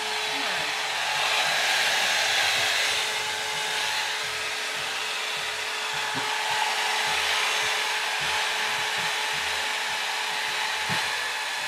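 Handgun-shaped electric hair dryer running steadily, blowing air: a continuous rush of air with a steady motor hum beneath it.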